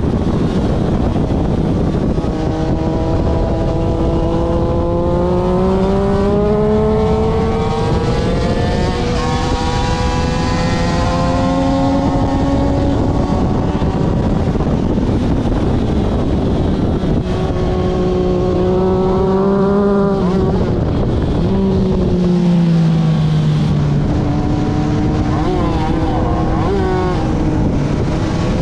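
Aprilia RS250's two-stroke V-twin racing engine at high revs, its pitch climbing for several seconds at a time and dropping back between climbs, then falling off about two-thirds through before rising again. A loud, steady rushing noise runs under the engine throughout.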